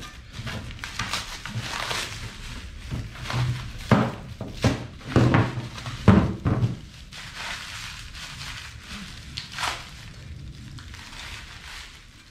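Unpacking of boxed belt grinder parts: packaging rustling and crinkling, with a run of knocks and thuds as parts are handled, loudest in the first half and quieter rustling after.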